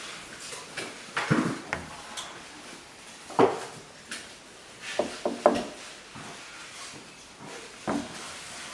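Irregular knocks and clatters of objects being handled in a small room: a few at a time, spaced over several seconds, the sharpest about a third of the way in and another cluster just past the middle.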